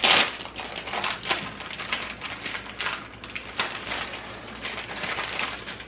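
Kitchen handling noises while food is prepared: a sharp knock at the start, then a busy run of small irregular clicks, taps and rustles.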